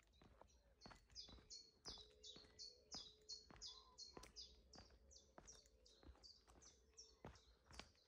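A small songbird sings a long run of repeated high, evenly paced notes, about three a second, stopping about a second before the end. Under it are footsteps of someone walking, about two steps a second.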